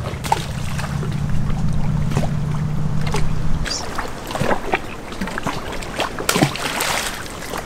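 A low steady hum that stops about three and a half seconds in, then light knocks and rustles of a crab hand line being handled and thrown out, with a short splash-like rush a little after six seconds as the weighted bait lands in the water.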